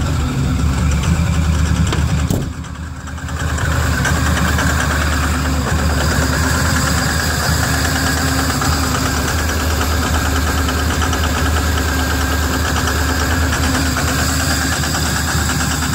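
Ford pickup's diesel engine idling rough just after a cold, hard start at almost −30 °C without its block heater plugged in. A single knock sounds a couple of seconds in, and the engine is briefly muffled.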